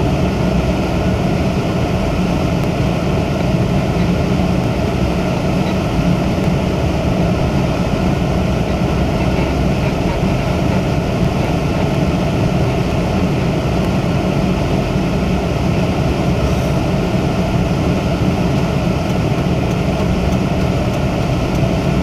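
Steady low rumble of a car driving, heard from inside the cabin: engine and tyre noise on a snow-covered street.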